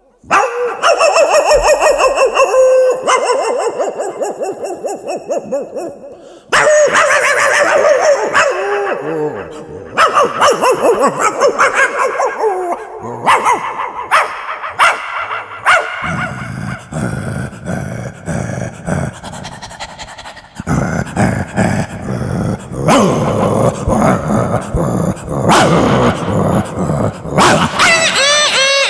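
A man imitating a dog fight with his voice: a run of growls, barks and yelps in quick succession, with rising and falling whining yelps near the end.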